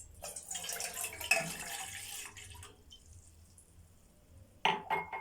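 Milk being poured out of a glass, a splashing pour that runs for about two and a half seconds and then stops.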